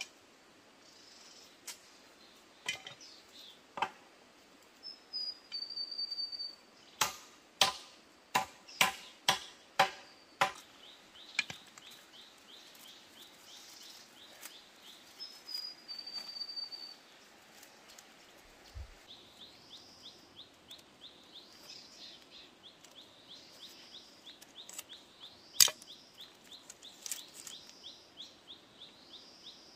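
Outdoor birdsong: a clear whistled note twice, then a fast, high chirring trill through the second half. About a third of the way in comes a quick run of about eight sharp knocks, with single sharp knocks elsewhere.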